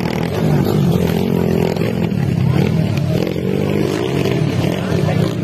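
Dirt-bike engines running and revving close by, their pitch rising and falling.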